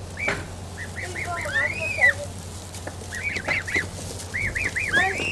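Domestic goslings peeping: short, high arching calls in quick runs of three or four, with one longer, drawn-out call about two seconds in.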